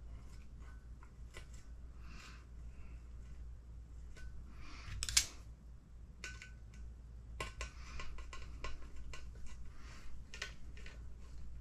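Small clicks, ticks and scrapes of hand assembly: a screwdriver driving an M4 titanium screw through a plastic suspension mount into an RC truck's chassis plate, with the plastic parts being handled. One sharper click comes about five seconds in, and a run of quick ticks follows near the end.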